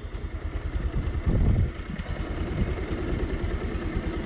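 Motorcycle engine running at low speed, its firing pulses coming evenly and rapidly, with a couple of brief swells in engine sound.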